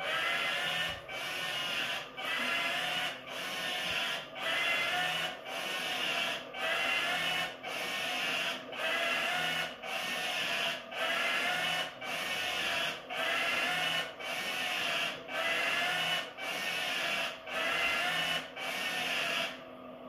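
Veniibot N1 robot vacuum's base station running its mop-pad self-cleaning cycle: a mechanical whirring that pulses evenly about once a second, with a wavering pitch in each pulse. It starts abruptly and stops just before the end.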